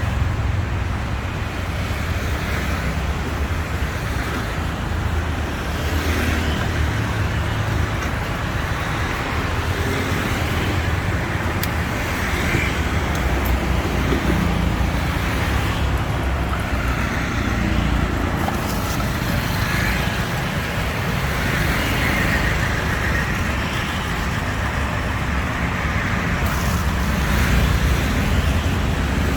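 Steady road traffic noise from passing vehicles, mostly low in pitch, with no single loud event standing out.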